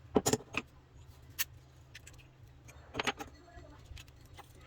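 Metal pieces clinking and clattering: a quick cluster of clinks near the start, a single sharp clink about a second and a half in, and another cluster about three seconds in.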